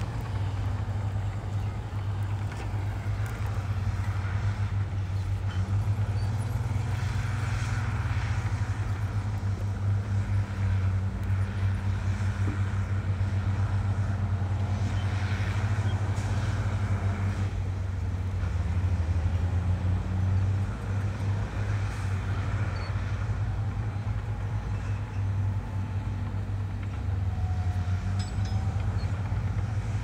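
Heavy diesel engines of earthmoving machinery running with a steady low drone, with a couple of short louder swells of noise.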